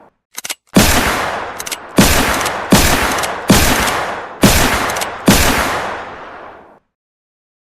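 An Old West single-action revolver fired six times in a row, each shot sharp and followed by a long, fading echo, with the hammer clicking as it is cocked before the first shot.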